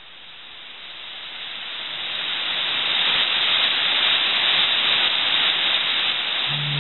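Steady rushing of the Trümmelbach falls, a glacial meltwater torrent crashing down a narrow rock gorge, fading in at the start and then holding steady. Music comes back in near the end.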